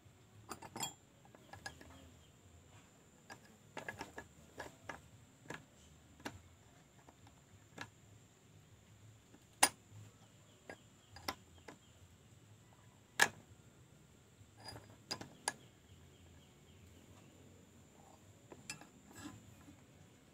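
Scattered light clicks and knocks of hand tools and small parts being handled during chainsaw repair, with two sharp, louder clicks about ten and thirteen seconds in.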